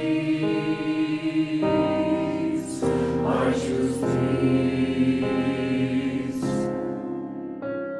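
Mixed-voice choir singing sustained chords in harmony. The chords change about once a second, with soft sibilant consonants on some words, and the singing thins near the end.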